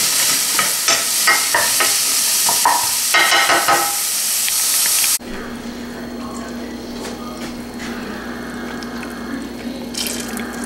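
Vegetables sizzling in a hot oiled pan, with the clicks of stirring. About five seconds in it cuts to a quieter frying sound with a low steady hum, and near the end chicken stock starts pouring into the pan.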